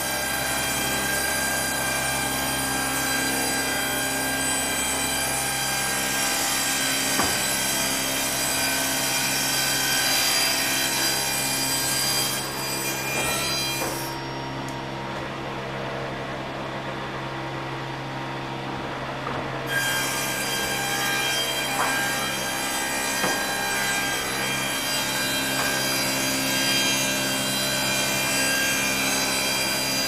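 Sawmill saw and machinery running steadily and cutting wood, with a constant hum and many high ringing tones. For several seconds around the middle the bright upper hiss falls away and the sound goes duller, then it comes back. A few short knocks sound here and there.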